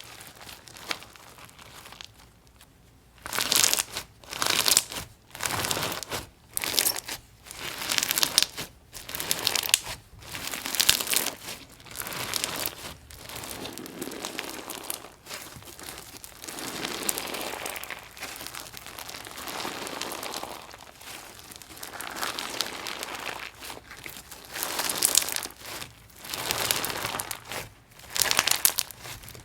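Gritty, crunchy-textured slime being squeezed and pressed by hand, giving repeated crackling crunches about once a second after a quiet first few seconds.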